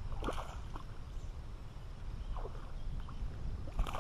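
A hooked largemouth bass splashing at the surface beside a kayak as it is reeled in: three short splashes, the last and loudest near the end, over a low steady rumble.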